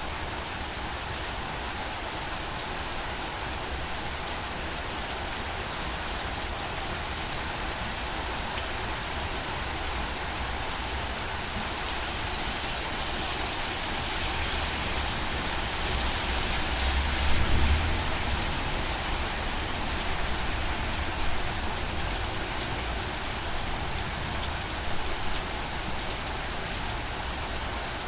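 Steady rain falling and pattering on surfaces, with a low rumble that swells briefly a little past the middle.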